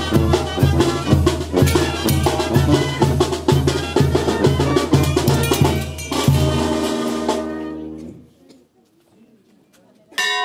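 Brass and drum band music with a steady drumbeat, accompanying the dance. It ends on a held chord about seven to eight seconds in. After a short quiet a bell is struck once near the end and rings on.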